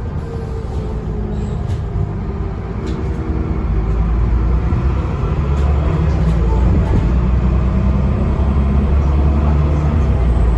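A Dennis Trident double-decker bus's diesel engine and drivetrain, heard from inside the passenger saloon. The engine eases off, then pulls harder from about four seconds in, its pitch rising and the low drone growing louder.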